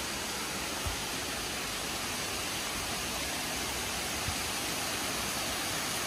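Steady roar of rushing water from a waterfall up ahead, an even hiss with no pitch to it. Two soft low thumps come about a second and about four seconds in.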